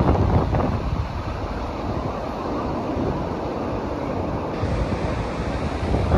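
Pacific Ocean surf breaking and washing onto a sandy beach, a steady rush of waves, with wind buffeting the microphone, most strongly in the first second.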